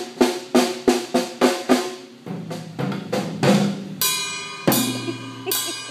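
Drum kit being played: quick even drum hits, about three a second, for the first two seconds, then a few looser low drum hits, and from about four seconds in three cymbal crashes roughly a second apart, each left ringing.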